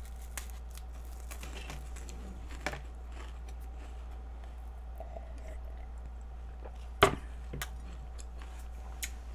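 Faint crunching and chewing of a flaky puff-pastry stick, then a sharp knock about seven seconds in and a softer one just after, as a glass mug is set down on a wooden tray. A steady low electrical hum runs underneath.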